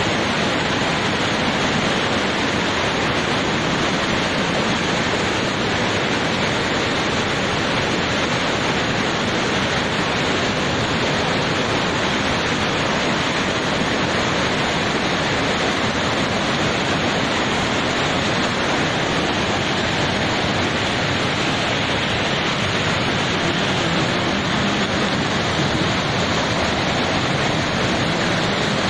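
Flash-flood torrent of muddy water pouring down a steep rocky channel over boulders: a loud, steady rushing of water.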